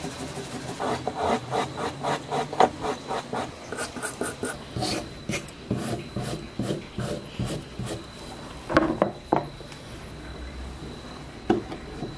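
Small wire brush scrubbing rust off a rusted cheap cast-metal replica revolver frame on a wooden bench, in quick scratchy strokes about two or three a second. A few louder, sharper scrapes come about three-quarters of the way through and near the end.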